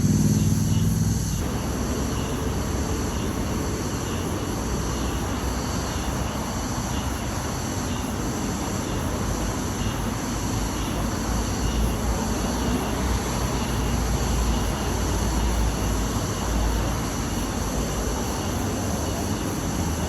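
Steady outdoor background noise with a low rumble that swells and fades, and a low hum in the first second or so.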